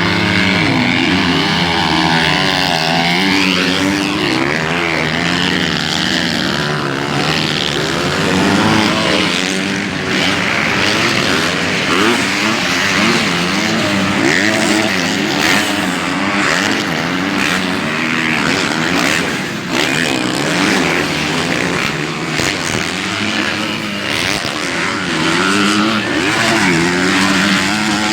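Motocross bike engines revving, their pitch climbing and dropping over and over as the bikes accelerate and ease off, with more than one engine heard at once.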